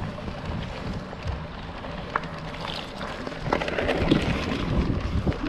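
Wind noise on a mountain bike's action-camera microphone while riding, with scattered knocks and rattles from the bike over the ground; it grows louder about three and a half seconds in.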